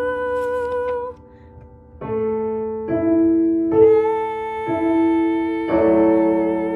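Piano accompaniment playing a slow series of chords under a singer's held notes with vibrato, the soprano line of a choral piece. The held note breaks off about a second in, the piano comes back in about a second later, and a new held note with vibrato sounds near the end.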